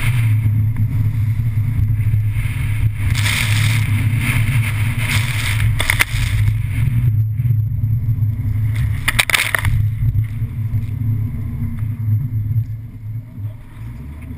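Seat Leon FR's engine running steadily as the car drives across a wet skid pad, with bursts of water spray hissing against the car about three, six and nine seconds in. The engine sound eases off near the end as the car slows.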